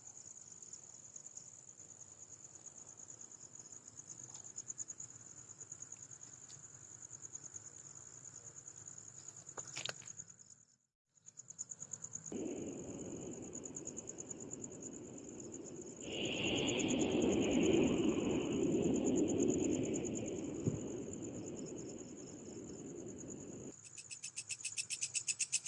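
Night crickets trilling in a steady, high, continuous chirr. A broad rustling noise comes in about twelve seconds in, swells for several seconds and stops near the end. Just before the end a closer insect call pulses rapidly.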